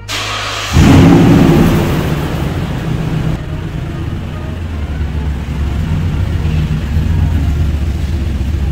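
2014 Toyota Tundra's V8 running through a Borla Touring cat-back exhaust with Carven R-Series mufflers. The exhaust surges loud under throttle about a second in, then settles into a deep, steady rumble.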